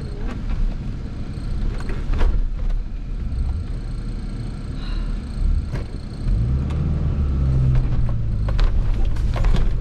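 Suzuki Vitara's engine running, heard from inside the cabin, while the 4x4 drives over rough off-road ground, with scattered knocks and rattles. About six seconds in, the engine note rises and gets louder as it speeds up.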